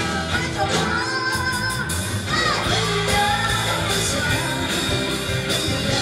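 Live band playing with women singing into microphones over electric bass, drum kit and keyboard.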